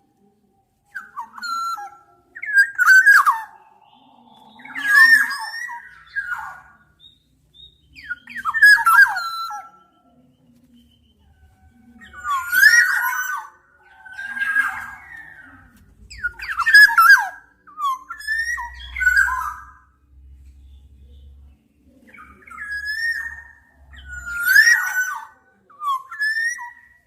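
Black-naped oriole calling: a series of short phrases that glide up and down in pitch, about one every two seconds, with brief pauses between them.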